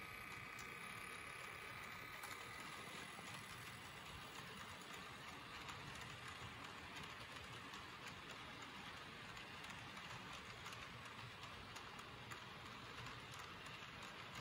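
H0-scale model freight train rolling past: the Märklin container wagons' small metal wheels make a faint, steady rolling hiss on the track, with light clicks over the rail joints. A thin whine from the passing locomotive's motor fades out in the first few seconds.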